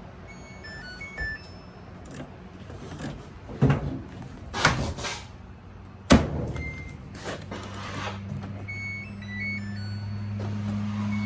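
Knocks and clatter of the dryer cabinet being handled, with a sharp click about six seconds in. A steady low electrical hum then sets in and grows louder toward the end, from the Samsung dryer under test, which is intermittently failing to start.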